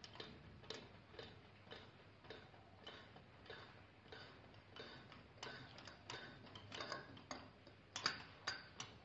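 Faint, irregular metallic clicks and ticks from a wrench working on the steel barrel of a feed/transfer pump as the lower barrel is unscrewed, about one or two a second, with a few louder clicks near the end.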